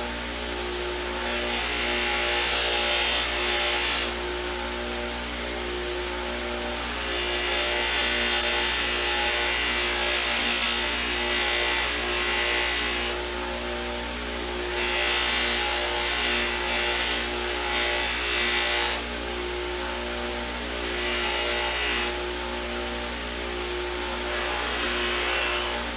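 An electric polishing tool running steadily. A brighter hiss swells and fades every few seconds as the buffing wheel is pressed against the Zippo lighter's case.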